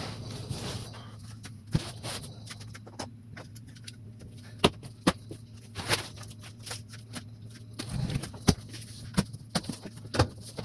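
Scattered, irregular sharp clicks and knocks, as of objects being handled or set down, over a steady low hum.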